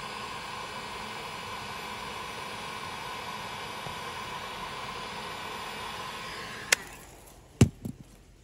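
Rapid R1800 hot-air gun blowing steadily while heating heat-shrink solder-sleeve connectors on irrigation valve wires. It dies away about seven seconds in, followed by a sharp click and two knocks.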